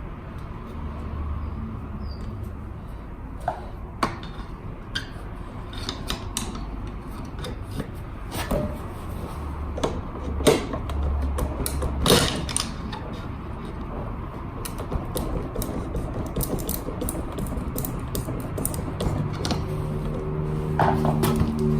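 Metal hand tools and scooter parts clicking, knocking and creaking during work on a Honda Today scooter's seized rear wheel, with scattered sharp clicks and two louder knocks about halfway through.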